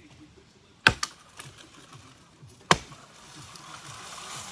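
Axe chopping into a tree trunk: two sharp strikes about two seconds apart. Near the end comes a swelling rush of noise as the tree starts to give way and fall.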